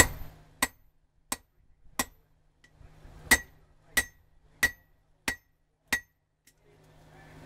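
Hand hammer striking hot coil-spring steel on an anvil: nine sharp, briefly ringing blows about two-thirds of a second apart, with a short pause after the fourth. The first blow is the loudest.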